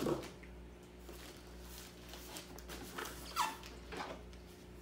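Cardboard boxes being handled: the inner battery box is pulled free of the outer carton and set down on the table, giving a few short knocks and a brief falling squeak about three and a half seconds in.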